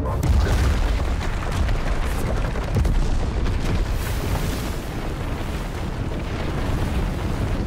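Film sound effects of giant stone slabs bursting up out of the earth: a loud, continuous deep rumble with crashing debris and explosive booms. It is heaviest about half a second in and again around three seconds.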